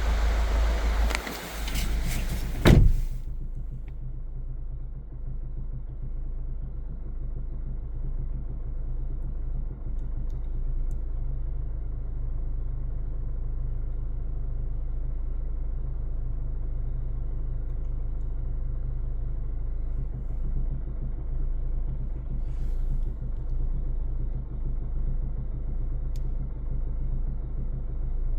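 Hyundai ix35's 2.0-litre diesel engine running at low revs, heard from inside the cabin, with the knocking noise the owner is asking about: it comes at standstill or pulling away below about 1500 rpm, with the engine warm, and its cause is unknown. A sharp thump about three seconds in is the loudest sound, after which the engine note runs steadily.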